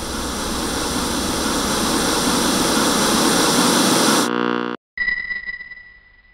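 TV static sound effect: a hiss of white noise that grows louder for about four seconds. A short buzz follows, then a sudden cut, and after it a high steady tone with hiss that fades away near the end.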